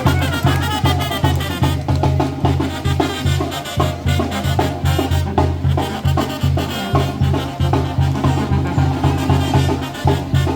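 Upbeat Latin dance music with brass and a strong bass pulsing on a steady beat.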